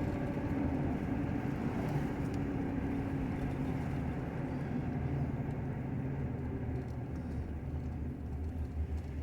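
Car driving: steady engine hum and road noise heard from inside the cabin, easing off slightly toward the end.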